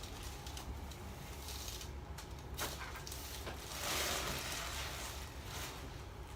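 Chiropractic adjustment of the upper neck at C1–C2: a single sharp click about two and a half seconds in, then a soft rush of noise about a second later, over a low steady room hum.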